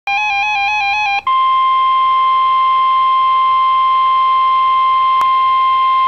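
NOAA Weather Radio sounding a warning alert: about a second of warbling two-pitch electronic tone, then the steady 1050 Hz warning alarm tone, which signals that a warning broadcast, here a severe thunderstorm warning, is about to follow. A faint click falls near the end.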